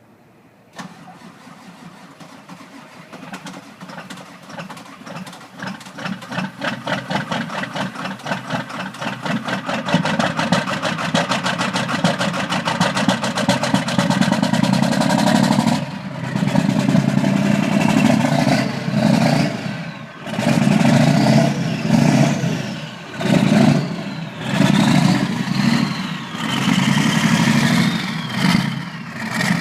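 1997 Ford Powerstroke 7.3-litre turbo-diesel V8 cold-starting without its block heater: it cranks and fires raggedly, growing louder and quicker over several seconds as it catches. In the second half it is revved up and down repeatedly.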